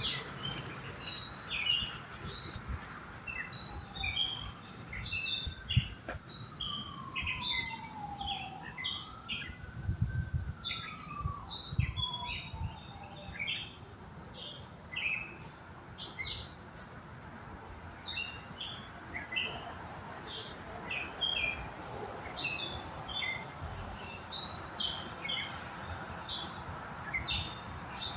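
Several small birds chirping: a dense run of short, high chirps that keeps going, with a faint tone gliding down and back up in the middle and a few low thuds.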